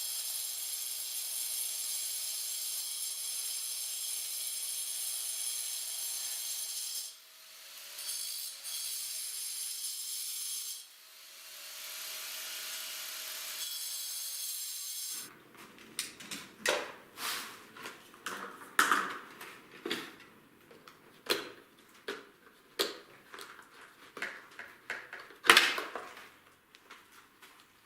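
A small electric motor runs with a steady high whine. It cuts out and winds down about 7 s in, starts again, stops once more around 11 s and restarts. It stops about halfway through, and irregular knocks and clicks follow, like objects being handled.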